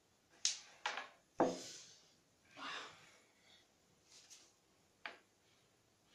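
Carrom striker flicked across a wooden carrom board: three sharp clicks in quick succession as it knocks into the coins and the board's wooden frame, the last and loudest about a second and a half in. Softer brushing sounds follow, with one more single click near the end.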